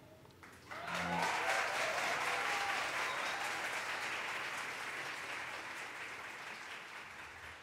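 Audience applauding and cheering, breaking out suddenly about a second in, then slowly fading away.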